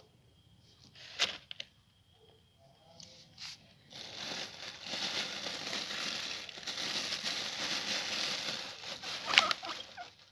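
Crumpled paper crinkling and rustling as a guinea pig pushes under it through wood-shaving bedding: a couple of sharp crackles about a second in, then steady crinkling from about four seconds on.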